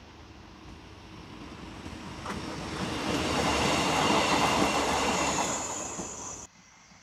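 A train passing on the rails: the rumble builds over a few seconds, peaks with a high, steady wheel squeal, then fades and cuts off suddenly near the end.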